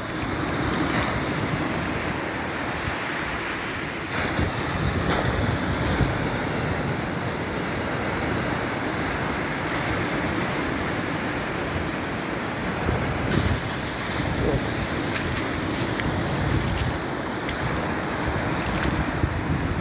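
Wind buffeting the microphone over surf washing onto a beach: a steady, loud rushing noise heaviest in the low end.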